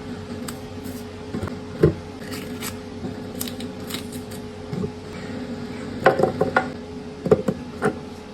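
Kitchen prep sounds: sharp clicks and knocks of utensils and cookware being handled, a cluster of them near the end, over a steady low appliance hum.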